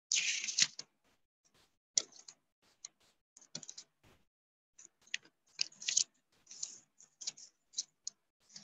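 A short loud scuffing burst at the start, then a dozen or so short irregular clicks and taps close to the microphone, like a keyboard or mouse being handled at a computer desk.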